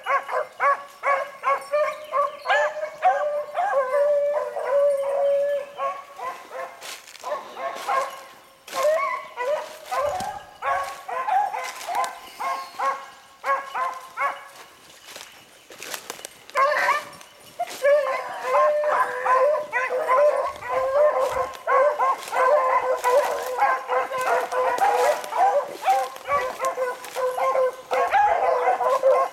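A pack of beagles baying as they run a rabbit's scent trail: a steady stream of rapid, overlapping hound barks and howls. It thins out briefly around the middle, then builds back to a full chorus.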